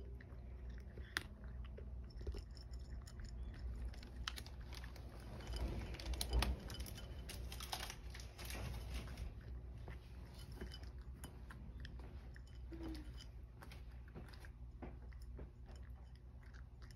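A cat crunching dry kibble: a steady run of small crackling chews, busiest and loudest about six seconds in.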